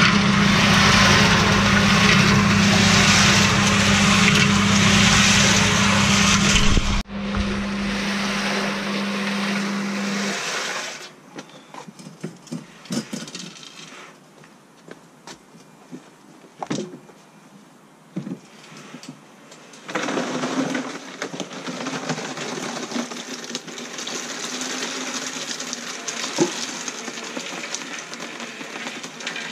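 Electric concrete mixer running, its drum tumbling a dry mix of ballast and cement over a steady motor hum. About ten seconds in the hum stops, leaving scattered knocks, and a steady noise starts up again about twenty seconds in.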